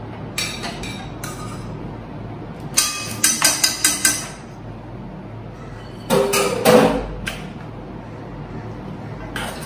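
Steel kitchen utensils and pans clinking and knocking against one another and a glass dish: one clink near the start, a quick run of clinks about three seconds in, and another cluster about six seconds in.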